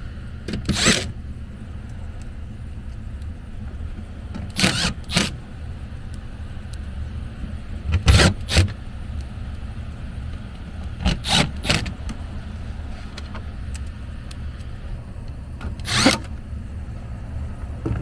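Cordless driver running in five short bursts a few seconds apart, driving screws into a sheet-metal air handler cabinet panel. A steady low hum from the running HVAC system sits underneath.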